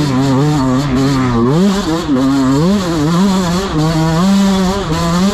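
Dirt bike engine revving up and down with the throttle while riding, its pitch rising sharply about one and a half seconds in and again a little before three seconds.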